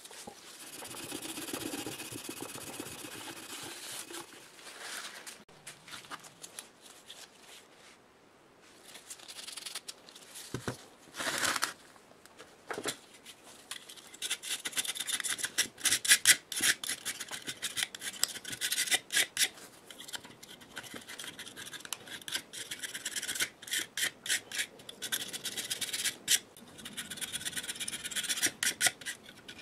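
Razor-blade scraper scraping old gasket residue and rust off the flange of a cast-iron air compressor housing, in short, quick scraping strokes that come fast and dense from about halfway through.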